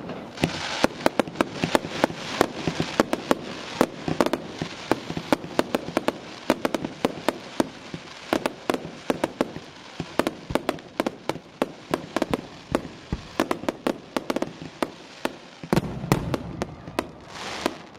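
Fireworks display: aerial shells bursting in a rapid, irregular run of sharp bangs and crackles over a constant hiss, with a denser rushing noise near the end.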